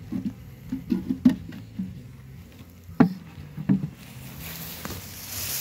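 Wooden knocks and bumps as a wired comb frame is set into a wooden beehive box and a board is laid over it, the sharpest knock about three seconds in, over a steady hum of bees. A rustling hiss comes in near the end.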